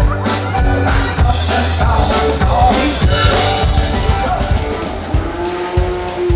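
Background music with drums and held instrumental notes.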